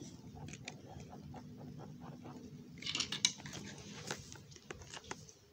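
Faint scattered clicks and light knocks of wooden toy train pieces being handled and set down, with a short rustle about three seconds in.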